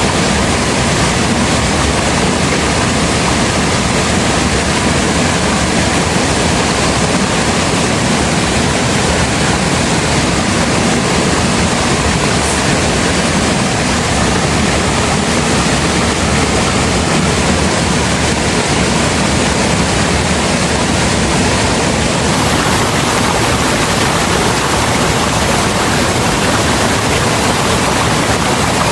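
Loud, steady rush of a waterfall's falling water, close to the microphone. The sound shifts slightly about three quarters of the way through.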